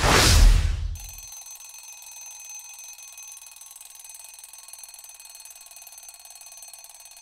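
Quiz sound effect: a loud, noisy burst about a second long marks a wrong answer, then fades into a faint, steady ringing of several high tones that holds.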